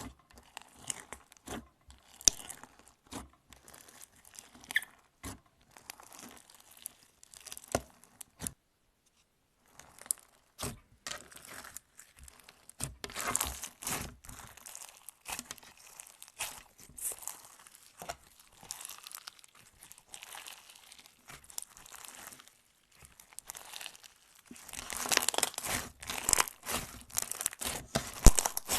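Slime being squeezed and stretched by hand, giving a run of sticky crackles and pops. It breaks off briefly about nine seconds in and grows denser near the end.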